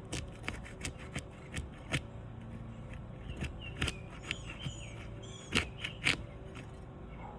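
A steel flat bar prying apart sealed asphalt shingles, breaking the adhesive seal strip: an irregular run of sharp clicks and short scrapes, with the two loudest snaps near the end.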